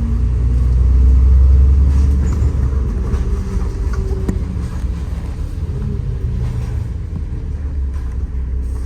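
Bus engine and road rumble heard from inside the passenger cabin: a low drone that swells about a second in, as if pulling away, then settles to a steady rumble with light rattles.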